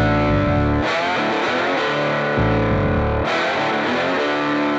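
Intro music: distorted electric guitar chords held over a rock backing, with heavy low bass notes coming in and out in blocks.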